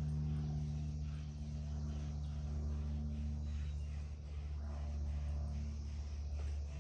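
Curry comb strokes brushing over a donkey's coat, a faint repeated scratching, under a steady low hum.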